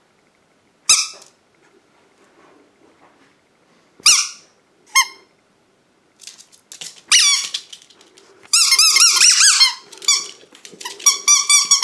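Rubber squeaky toy ball being squeaked: single squeaks about a second in and twice around four to five seconds in, then a fast run of repeated squeaks through the second half.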